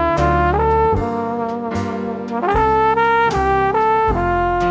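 Outro music: a brass melody of held notes moving step by step, over strong low bass hits every second or two.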